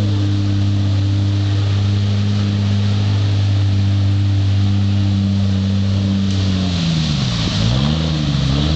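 Jeep engine running steadily under load as it drives through deep water, then its speed dropping and rising two or three times near the end. A rush of splashing water grows under it toward the end.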